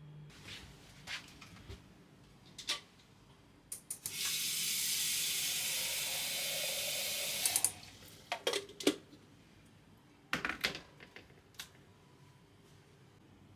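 Kitchen tap running in a steady stream for about three and a half seconds, then turned off, with light knocks and clicks of handling before and after.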